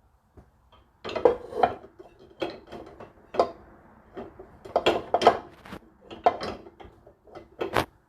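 Dishes and cutlery clinking and knocking against each other and the dishwasher racks as they are loaded: an irregular run of sharp clatters.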